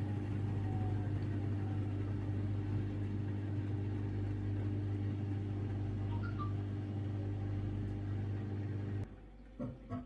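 Samsung Ecobubble washing machine with a digital inverter motor, spinning its drum at about 400 RPM with a steady low hum. About nine seconds in the hum cuts off suddenly, as the machine stops the spin to redistribute an unbalanced load, and a few faint clicks follow.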